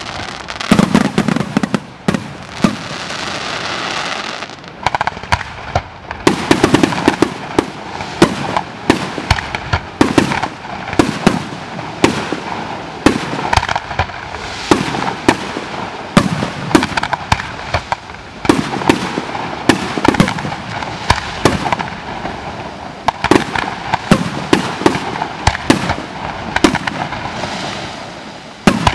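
Fireworks display: a rapid, irregular series of bangs and crackles from bursting shells, with a short stretch of hissing a few seconds in.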